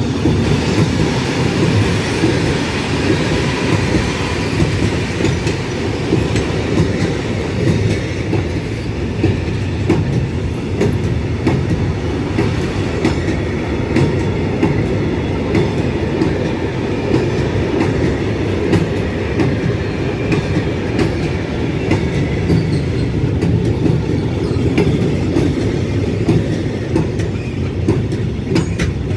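Freight train of covered sliding-wall box wagons rolling steadily past at close range: a continuous rumble of the wheels on the rails, with a rapid clatter of clicks.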